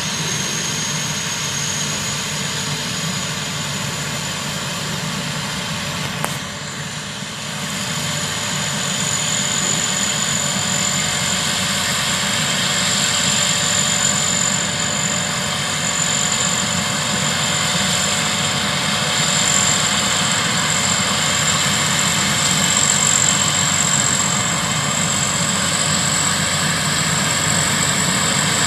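Thai Charoen Kan Chang rice combine harvester running steadily, its engine drone overlaid by a constant high-pitched whine, with a brief dip and a click about six seconds in.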